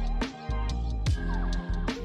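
Electronic music with a deep bass and a steady kick drum beating a little more than once a second.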